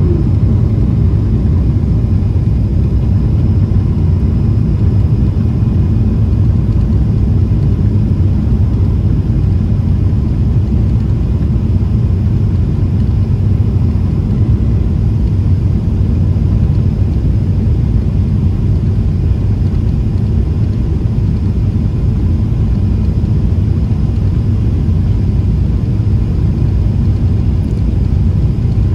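Steady cabin noise of a Boeing 777-300ER in flight: an even, low rumble from its GE90-115B engines and the air rushing past the fuselage, with a faint steady whine above it.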